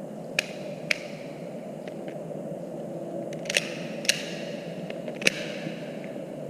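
Airsoft pistol firing at targets: about five sharp snaps at irregular intervals, each with a brief ringing tail, plus a few fainter clicks, over a steady low background hum.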